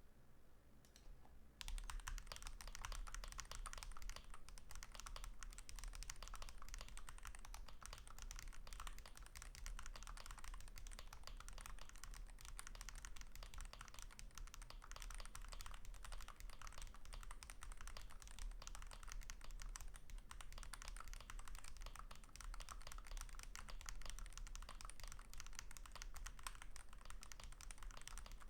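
Continuous typing on a custom 60% keyboard with Taishan HE magnetic switches, GMK Purple Night keycaps, and a Holy60 aluminium case holding Wooting 60HE+ internals with a polycarbonate plate. After a brief pause, dense key clacks start about two seconds in and keep going.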